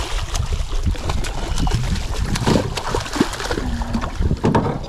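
A hooked redfish thrashing and splashing at the water's surface as it is netted, a run of short, sudden splashes, with wind buffeting the microphone as a steady low rumble.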